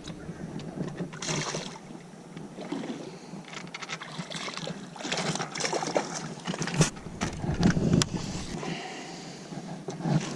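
Wind and water noise on a fishing boat, with a few sharp clicks and knocks.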